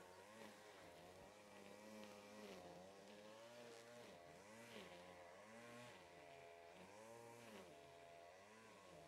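Faint petrol engine of grass-cutting machinery running on the far bank, its pitch rising and falling over and over, every second or so, as the throttle comes on and off.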